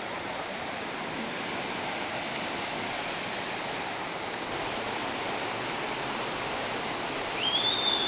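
Waterfall rushing: a steady noise of falling water. A brief high whistle comes near the end.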